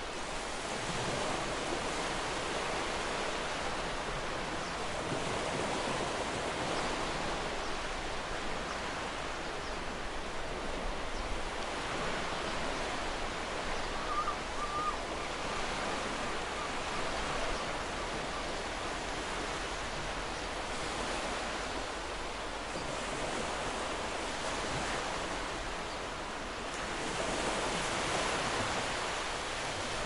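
Ocean surf washing onto a shore in a steady wash, swelling and easing every few seconds and a little louder near the end. Two short bird chirps come about halfway through.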